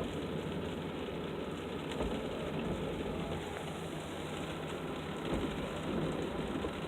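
Steady rain falling: an even hiss with scattered faint ticks.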